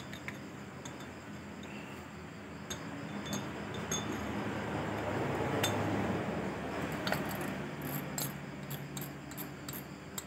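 Daiwa Bravia spinning reel being handled: a rustling noise that swells and fades over a few seconds, then a quick run of light metallic clicks near the end.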